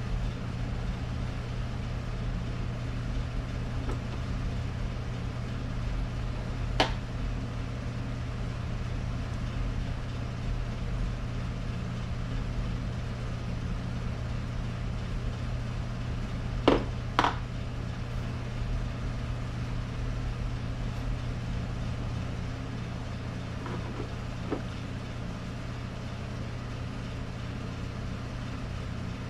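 Steady low hum of shop background noise, with a few sharp clicks of small metal parts being handled: one, then two close together near the middle, then a faint one.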